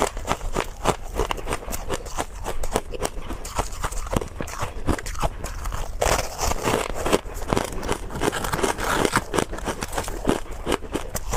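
Hard, sweet frozen purple ice bitten and chewed up close: a rapid, irregular run of crisp crunches and cracks.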